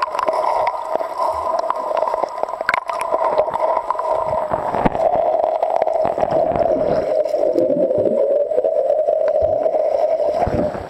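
River water heard through a submerged camera: a steady, muffled rushing and gurgling, with a few sharp clicks and knocks.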